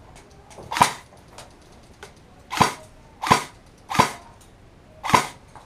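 Airsoft gun firing five single shots at uneven intervals, each a sharp crack.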